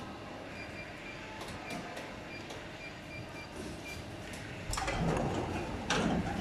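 Injection molding machine cycling a drawer mold: a steady machine hum with faint ticking while the mold is clamped shut, then a louder rush and a clunk about three-quarters through as the clamp opens the mold.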